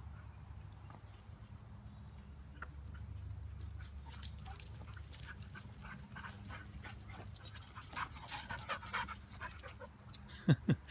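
A dog panting hard after running after a ball, quick short breaths that start a few seconds in and grow louder toward the end as the dog comes close.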